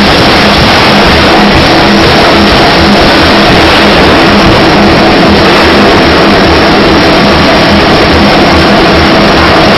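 Loud, steady machinery noise of a steel-ball forging line, with a pneumatic forging hammer and rolling machinery running. A fast, even low pulse sits under a dense, unchanging din.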